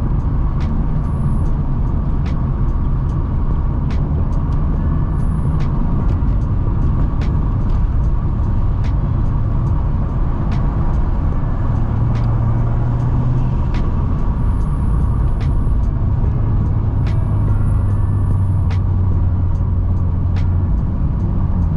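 Ford Falcon's turbocharged Barra inline-six droning at a steady cruise with road noise, heard from inside the cabin; the drone shifts pitch slightly now and then, and faint clicks are scattered through it.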